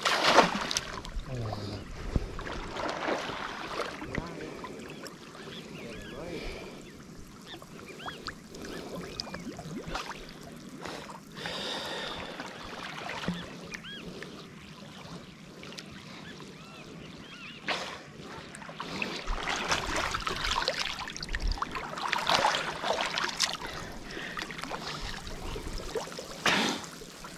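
Shallow muddy water sloshing and splashing in irregular bursts as someone wades through it.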